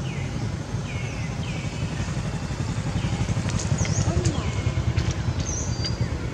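Low engine rumble of a motorcycle running nearby, swelling a few seconds in. Over it a bird repeats short falling chirps every second or so.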